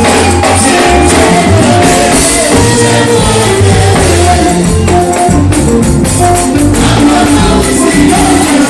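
Loud live church worship music: a band playing with a sustained bass line and steady percussion.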